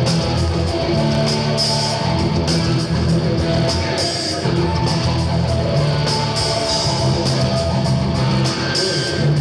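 Live rock band: an overdriven electric guitar, a Les Paul-style guitar played through Marshall amplifier stacks, holding sustained notes over a steady beat of sharp hits.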